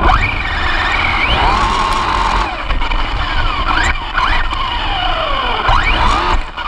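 Onboard sound of a fast RC car: its motor and drivetrain whine rising and falling in pitch again and again with the throttle, over heavy rumbling of tyres on loose dirt and gravel and wind buffeting the microphone.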